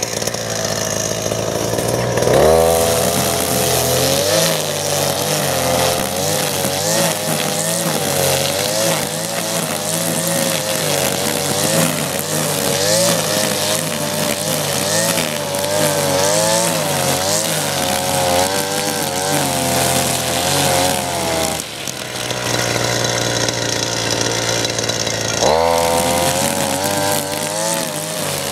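Husqvarna backpack brush cutter's two-stroke engine running at cutting revs, its pitch wavering under load as a Stihl AutoCut 46-2 line head whips through long grass. It revs up about two seconds in, drops back for a few seconds near the end, then revs up again.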